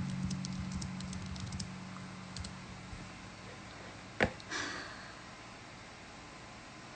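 Acoustic guitar strings left ringing low and fading out, with a scatter of light clicking taps over the first second and a half. About four seconds in comes a single sharp click, then a short breathy sound.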